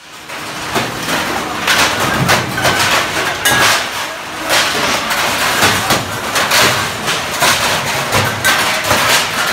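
Stainless steel thali plates clattering and clanging against one another and against large metal tubs as they are washed, a dense, irregular run of metallic clanks.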